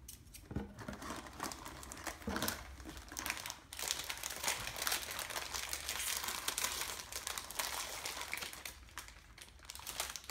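Foil blind-bag packs of HeroClix miniatures crinkling and crackling irregularly as they are handled and opened.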